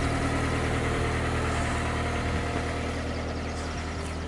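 A steady low engine hum, running evenly and slowly fading toward the end.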